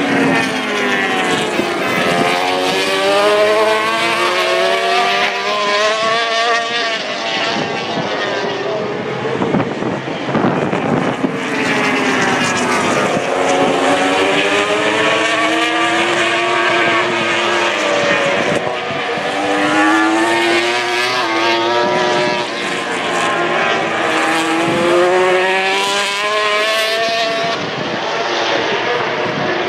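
MotoGP racing motorcycles' 1000 cc four-stroke engines passing at speed in three waves. In each wave the engine pitch rises and falls with the throttle and gear changes as the bikes go by.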